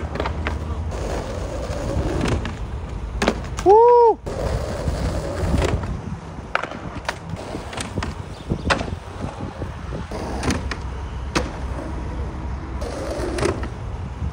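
Skateboard rolling on asphalt, with repeated sharp clacks of the board popping off the wooden kicker ramp and landing. About four seconds in, a short, loud, high tone rises and falls.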